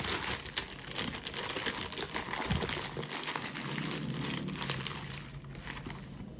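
Plastic packaging bags crinkling and rustling in the hands as they are unwrapped, a continuous run of irregular crackles that thins out a little near the end.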